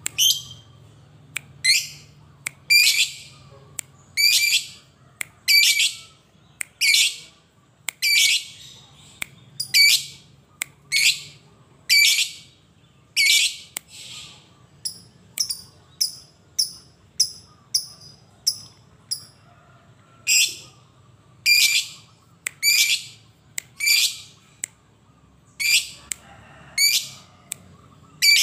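Lovebird calling over and over in loud, harsh chattering calls about once a second. About halfway through it switches for a few seconds to shorter, quicker clipped notes, then goes back to the longer calls.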